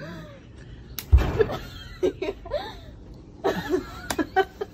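A sudden thump about a second in, followed by bursts of laughter.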